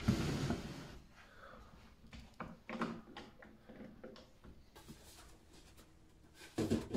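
Handling noise of MDF panels being positioned on a wooden workbench: a rough scrape or rub in the first second, then scattered light knocks and clicks.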